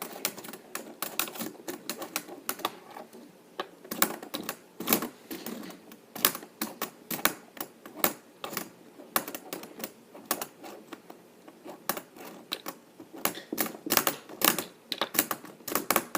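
Fidget spinners being handled and knocked against each other, making irregular sharp clicks, often several a second and in quick clusters, as one spinner's arms push the other round like gears.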